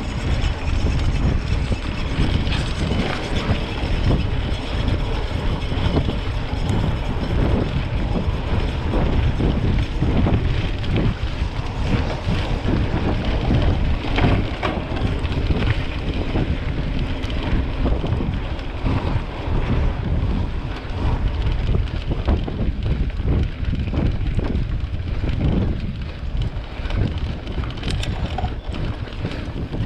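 Heavy wind noise on the microphone of a camera riding along on a mountain bike, with steady rumble and many small knocks and rattles from the trail.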